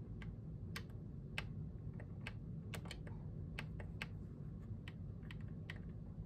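Plastic buttons on a Magnavox AJ3440 clock radio being pressed to set its alarms: faint, irregular clicks, about three a second.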